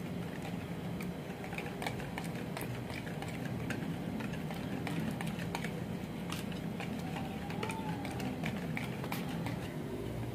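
Wire hand whisk beating cake batter in a plastic bowl: quick, irregular clicking and tapping of the wires against the bowl, over a steady low hum.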